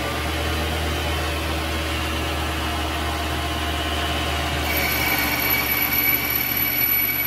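Vevor MX400 mini lathe switched on, its spindle running with a steady hum; about five seconds in, a higher steady whine joins as the automatic carriage feed is engaged for a cut on aluminum.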